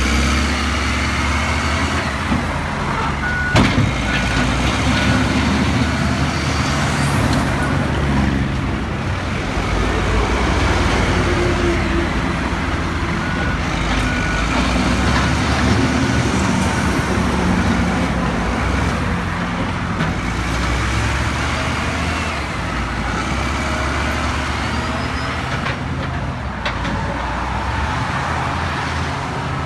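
Caterpillar 924F wheel loader's diesel engine running, its pitch rising and falling as the machine works, with a backup alarm beeping at times and a sharp knock a few seconds in.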